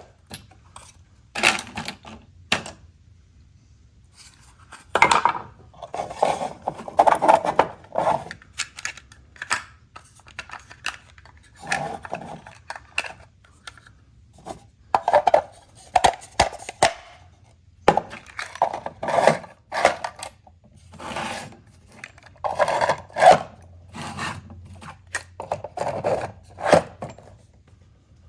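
Irregular clinking and clattering of small hard objects, metal parts and tools being handled and set down on a wooden surface, in short bursts with pauses between.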